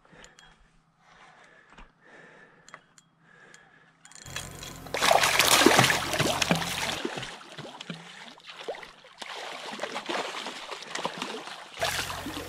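A hooked lake trout thrashing and splashing at the surface close to shore while being played on a rod. The first few seconds hold only faint clicks; the splashing comes in loud about four seconds in, eases, and picks up again near the end.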